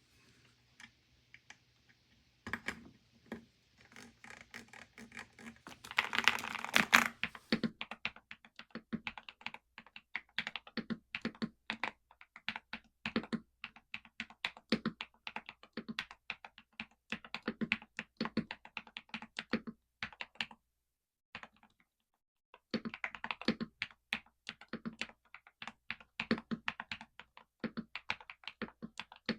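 Typing on a Galaxy 65 mechanical keyboard fitted with XVX crystal jelly OEM-profile keycaps: a fast run of key clacks that starts a couple of seconds in, with a dense, louder flurry around six seconds in. The typing breaks off for about two seconds two-thirds of the way through, then resumes.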